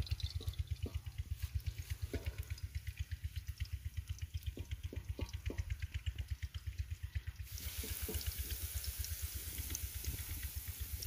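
Hot ghee sizzling in a steel karahi as fried carrot strips are lifted out with a wooden spoon, with a few light spoon knocks; the crackling hiss grows louder about two-thirds of the way through. A steady low, fast-pulsing throb runs underneath.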